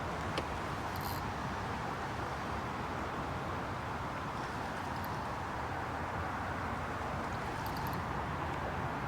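Steady outdoor background noise with a low rumble, and a single brief click about half a second in.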